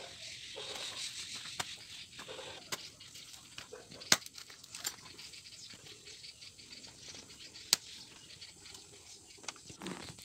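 Long knife chopping a peeled jackfruit into pieces: a few sharp knocks as the blade strikes through the fruit, the loudest about four seconds in, with light scraping and rustling between.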